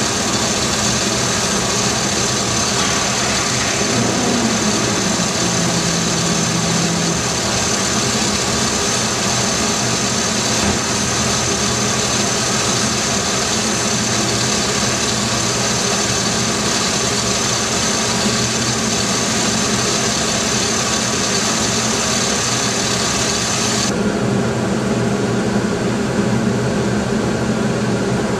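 GM 3.1-litre V6 engine idling steadily. About four seconds before the end, its high hiss suddenly drops away.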